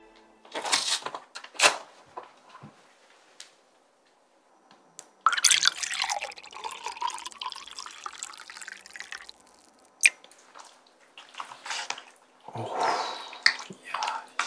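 Coolpis, a milky peach drink, poured from its paper carton into a glass, splashing and gurgling for about four seconds. It is preceded by a couple of sharp snaps about a second in, as the carton is handled, and followed by a short mouth sound near the end.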